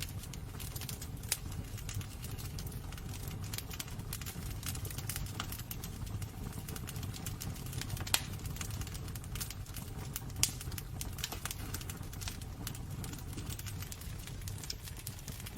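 Wood fire burning in a fireplace: a low steady rumble of flames with constant crackling and snapping, and two louder pops about 8 and 10.5 seconds in.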